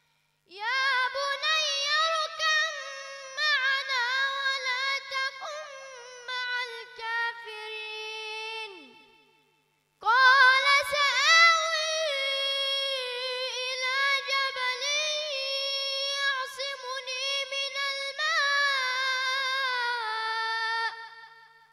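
A boy's high voice chanting Quran recitation (tajweed) into a microphone. It goes in two long, ornamented melodic phrases with a breath pause about nine seconds in, unaccompanied.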